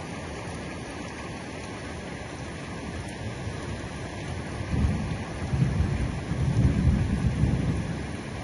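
Heavy rain falling steadily. About halfway through, a low rolling rumble of thunder swells up, then fades away near the end.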